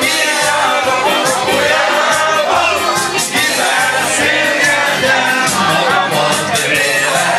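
Hungarian folk dance music with singing and a steady beat.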